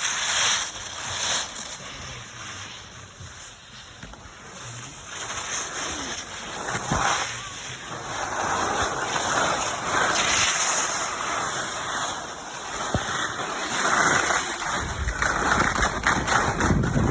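Skis sliding and scraping over packed snow, the hiss swelling and fading with each turn, with wind rumbling on the microphone near the end.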